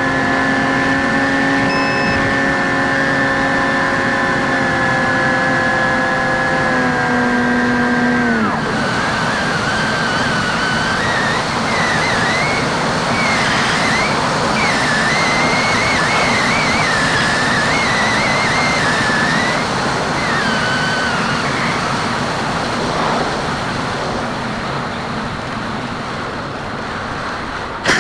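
Skywalker X5 flying wing's electric pusher motor and propeller running at steady speed, heard from the airframe. About eight seconds in it spools down with a falling pitch and cuts out, leaving rushing wind over the gliding airframe with a wavering whistle.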